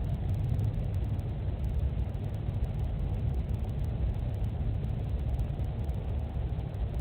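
Steady low rumble with a faint hiss, heard through a home security camera's small microphone, with no separate cracks or knocks.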